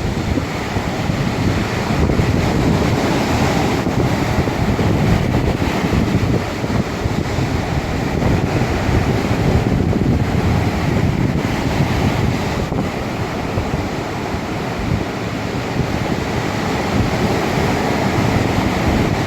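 Ocean waves surging and washing in a continuous rush, with wind rumbling on the microphone.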